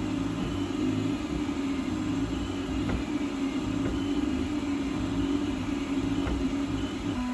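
TEVO Little Monster delta 3D printer printing in TPU, its stepper motors giving a steady, wavering whine over a low rumble as the print head moves.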